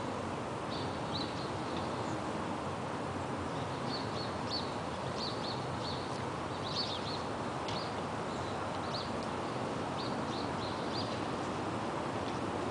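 Small birds chirping in short, scattered calls over a steady hum of city background noise.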